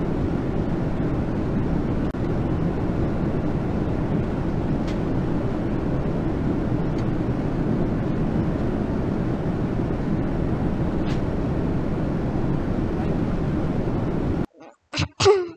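Steady low rumble of a jet airliner cabin in flight. It cuts off suddenly near the end, followed by a few short, louder sounds.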